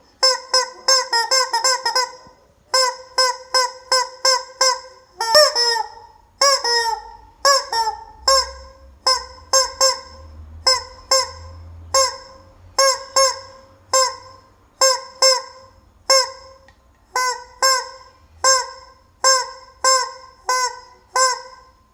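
Rubber chicken squeeze toy squawking over and over as it is squeezed: short, shrill squawks that dip a little in pitch. They come in quick runs of up to about four a second, with brief pauses between runs.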